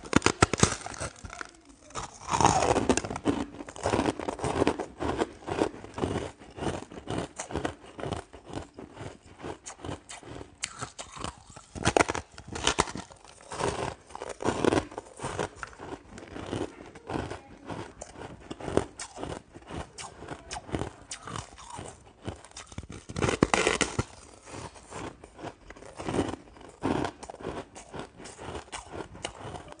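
Frosty honeycomb-shaped block of ice being bitten and chewed: steady crackling crunches, with a few louder bites near the start, about twelve seconds in and around twenty-three seconds in.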